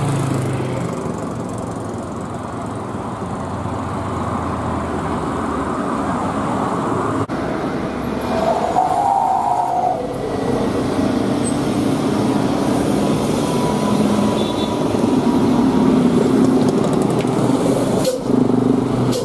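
Diesel intercity bus engines running and moving about, with general traffic noise. A short mid-pitched sound comes in about eight to nine seconds in.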